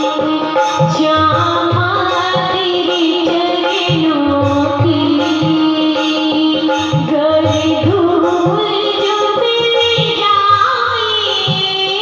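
Devotional bhajan music: hand drums keep a steady beat under a gliding melody line.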